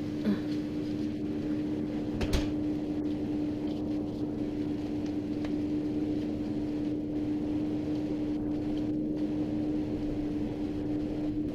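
Steady mechanical hum holding one low pitch, with a single short knock about two seconds in.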